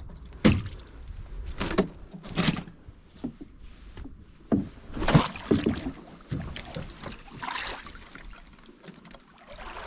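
Knocks and splashes in a small boat on the water, with about half a dozen sharp ones in the first six seconds, then softer noise.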